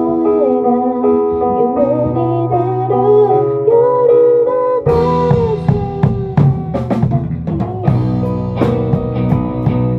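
A band playing a cover of a J-rock song. It opens on sustained chords under a wavering lead melody, a bass note joins about two seconds in, and the full drum kit comes in about halfway through.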